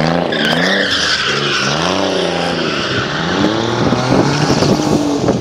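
Porsche drifting on a wet skid pad: its engine revs rise and fall over and over while the tyres hiss and skid across the wet tarmac.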